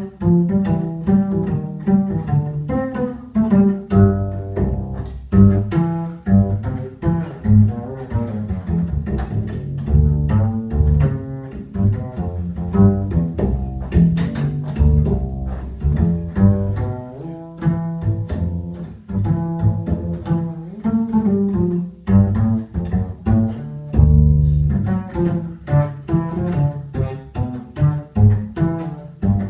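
Upright double bass played pizzicato alone: a jazz solo of short plucked notes in a steady stream.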